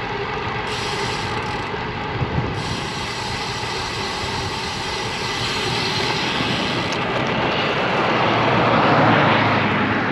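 Steady rush of wind and tyre-on-road noise on a moving road bicycle's action camera, swelling louder over the last few seconds.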